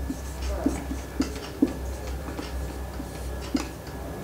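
Marker pen working on a whiteboard: about five short, separate taps and strokes, over a steady low hum.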